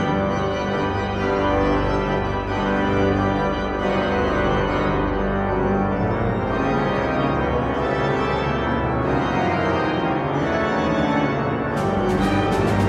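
Pipe organ playing full sustained chords over a deep pedal bass. Near the end, a quick run of sharp struck hits joins in.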